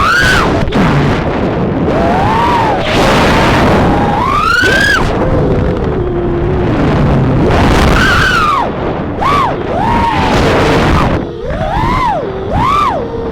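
Motors and propellers of a Hantu ModeX 3-inch 155 mm FPV quadcopter whining in flight. The pitch swoops up and down with the throttle, with several short, quick blips in the last few seconds.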